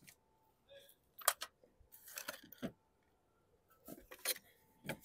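Metal hand tools clinking and clattering in a few short bursts as someone rummages through them for a large screwdriver.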